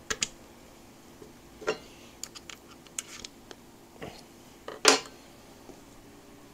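Scattered light metal clicks and clinks as a piston and its wrist pin are handled onto a connecting rod between the cylinder studs of a Honda CB350F four-cylinder engine, with one louder clink about five seconds in.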